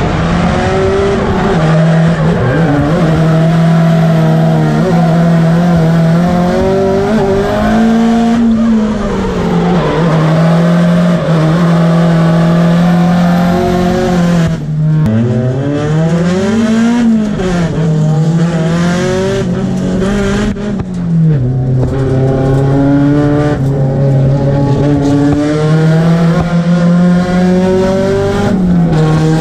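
Drift car's engine heard from inside the cabin, held at high, steady revs through a drift with tyres squealing; the revs dip and climb back several times, most deeply about halfway through.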